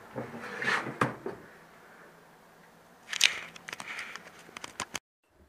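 Handling noise: a few soft rustles, then a sharp crack about three seconds in followed by a quick run of light clicks and knocks, cut off abruptly near the end.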